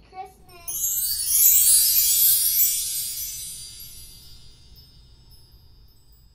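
Bright shimmering chime sweep, a sparkly transition sound effect, that starts suddenly high and spreads lower. It is loudest in its first two seconds and fades out over about five seconds.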